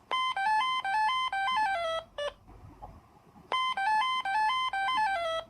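Old Alcatel mobile phone ringtone: a short electronic melody of beeping notes that steps down in pitch at the end of each phrase, played twice with a brief pause between. Pretty repetitive.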